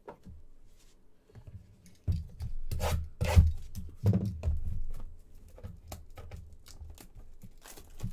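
Cardboard trading-card box being handled and slid against other boxes and the table: rubbing and scraping with scattered clicks, and a louder run of low knocks and scrapes between about two and five seconds in.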